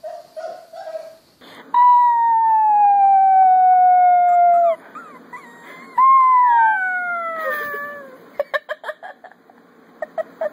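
A puppy howling: two long, high howls that each slide slowly down in pitch, the first lasting about three seconds from about two seconds in, the second starting about six seconds in. A few short whines come before them, and short ticks come near the end.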